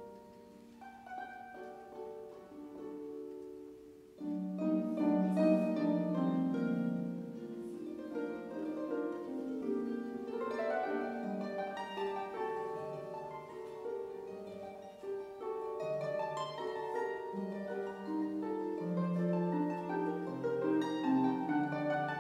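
Concert pedal harp played as a solo instrument with a concert band accompanying. The music is soft for the first few seconds, then swells much louder and fuller about four seconds in.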